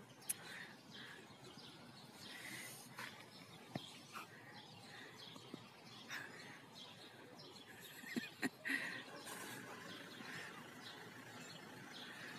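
Small birds chirping on and off in the background, with a few sharp taps, the loudest a quick cluster of three about eight seconds in.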